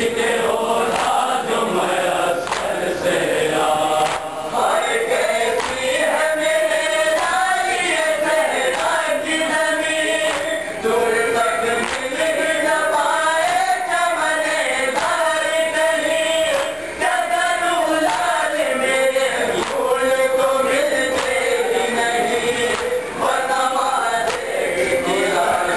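A group of men chanting a nauha, a Shia lament, in unison: one sung melody rising and falling in long held phrases, with short breaks between lines.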